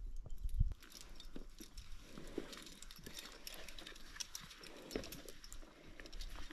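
Footsteps on rocky ground and loose stones, with irregular small clicks and knocks of boots and stones underfoot. There is a low rumble in the first second.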